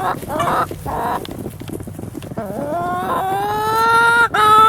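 An animal's drawn-out complaining calls. A wavering call comes in the first second, then a long, slightly rising call from about three seconds in, broken once just before the end.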